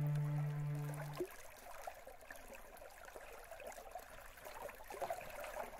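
A sustained music chord ends about a second in. Faint water follows, flowing and trickling with small gurgles.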